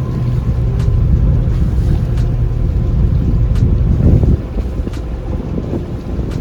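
Tour boat under way on a lake: a loud, low engine and water rumble mixed with wind buffeting the microphone. The rumble eases off about four seconds in.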